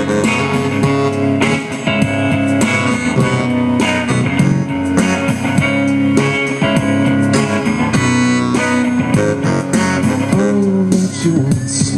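Electric guitar and keyboard playing live, an instrumental passage without singing.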